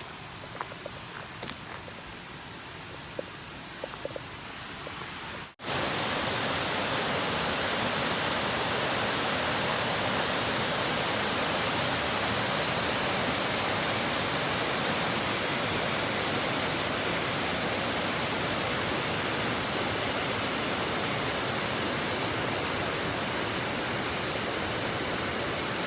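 Waterfall: a steady, even rush of falling water that starts abruptly about five and a half seconds in, after a quieter stretch of scattered light clicks.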